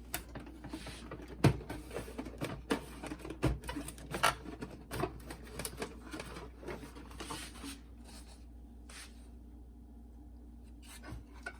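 Hands handling the opened plastic boombox and its parts: a run of irregular clicks, knocks and rustling for the first eight seconds or so, then only faint handling, with one small knock near the end.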